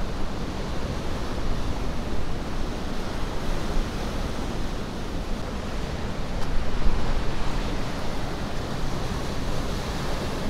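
Ocean surf: a steady wash of noise that swells slightly about six to seven seconds in.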